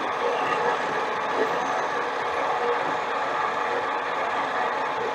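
Harbor Freight mini lathe running steadily, its motor and gear train whining, as the tool is fed by hand to take a roughing cut down the outside of the workpiece.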